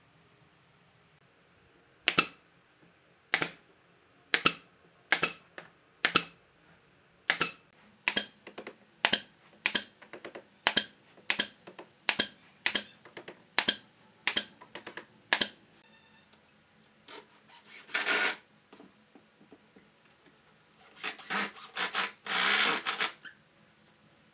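Hand-tool work on wood: a run of about twenty short, sharp strokes, roughly one and a half a second, then a longer stroke and a cluster of longer strokes near the end.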